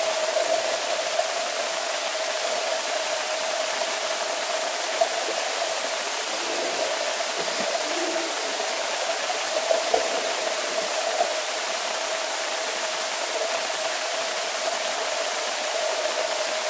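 Steady rushing noise of a swimming pool during training, with a constant mid-pitched hum and a few faint knocks.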